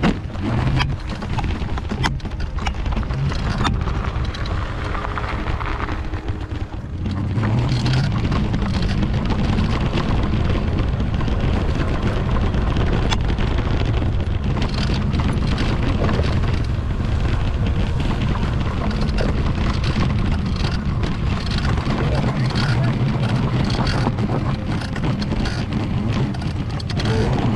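Wind buffeting the camera microphone and tyres rumbling over grassy dirt as an electric mountain bike rides off-road, with frequent knocks and rattles from the bumps. It gets louder from about seven seconds in.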